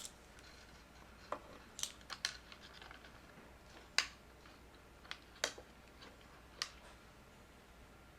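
Scattered light clicks and taps, about eight over several seconds, from soldering work on wired push buttons: the iron, solder and parts being handled. A faint steady hum lies underneath.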